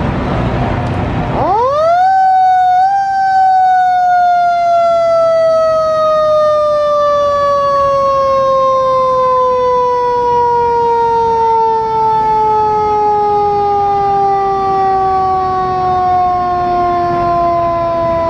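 Federal Signal Q2B motor-driven mechanical siren on a fire truck, spun up fast to a high wail about a second and a half in, given a brief second boost a second later, then coasting down in a long, slow, falling wind-down that is still dropping at the end. Before it starts there is a steady rumble.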